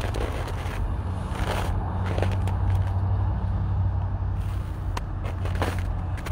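Street ambience: a steady low rumble of road traffic, swelling for a couple of seconds in the middle. Over it come scattered crunching, scraping steps on a gritty, slushy sidewalk.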